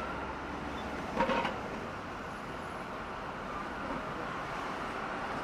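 Busy city street ambience: a steady hum of traffic, with one short, louder sound about a second in.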